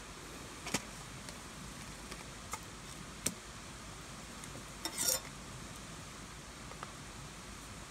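Split firewood sticks knocking against each other as they are picked up and set down: a few light wooden clacks spread out, with a short cluster about five seconds in, over a steady background hiss.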